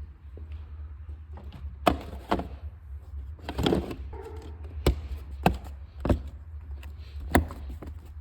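A series of sharp knocks and clunks, about seven, irregularly spaced, over a steady low rumble.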